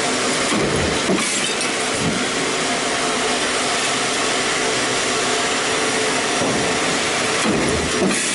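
Stamping press running: a steady machine hum and hiss, with two brief louder swells about a second in and near the end.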